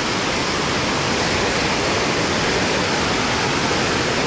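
Victoria Falls at peak flow: the steady roar of a huge mass of falling water.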